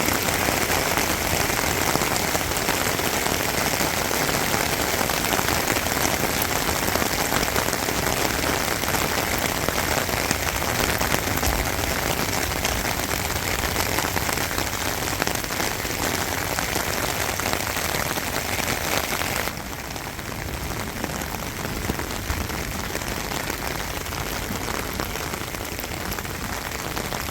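Rain falling steadily, a dense even hiss with no break; it drops suddenly to a somewhat softer level about two-thirds of the way through.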